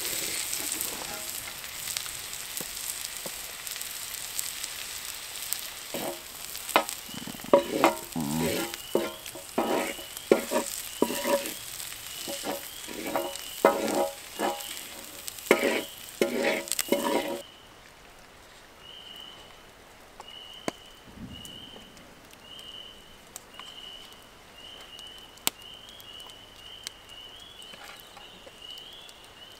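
Food sizzling in a hot pan, with a utensil scraping and clattering in quick strokes as it is stirred. The sizzling cuts off suddenly about halfway through, leaving a short high chirp that repeats about once a second.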